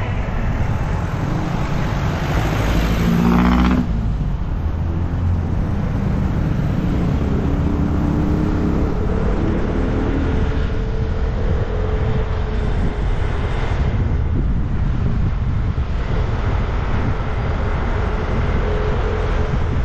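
Vespa scooter riding on a road, recorded on the moving bike: a steady low rumble of engine, wind and road noise. The engine's hum rises and falls in pitch with the throttle. A louder stretch cuts off suddenly about four seconds in.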